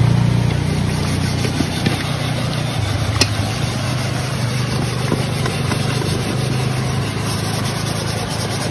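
An engine idling steadily with a low hum, a little louder at first and then even.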